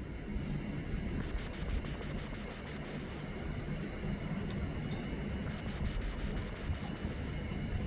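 Steady low outdoor rumble, with two bouts of rapid high-pitched ticking at about seven ticks a second. The first bout comes about a second in and the second about five and a half seconds in, each lasting about two seconds.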